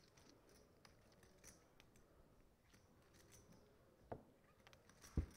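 Near silence at a poker table, broken by a few faint, scattered clicks of poker chips being handled.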